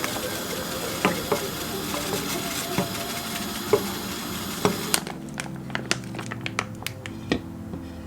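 Cooking sounds: a steady frying hiss with scattered clicks and knocks of utensils against a pan. About five seconds in, the hiss stops abruptly and only light taps and clicks remain.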